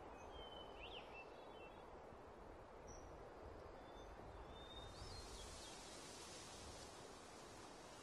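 Faint outdoor ambience: a soft steady wind-like hiss with a few short, high bird chirps. About halfway through, a brighter, hissier wind sound swells in.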